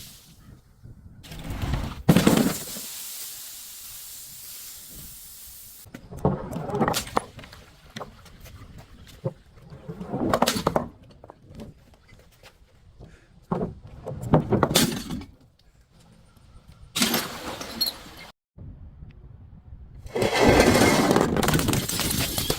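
Objects being crushed, cracking and breaking in about six separate bursts a few seconds apart. A steady hiss follows the first burst for a few seconds.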